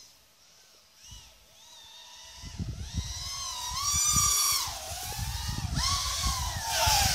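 FPV quadcopter's motors and propellers whining, the pitch rising and falling as the throttle changes. The whine grows much louder from about two and a half seconds in, over a low gusty rumble.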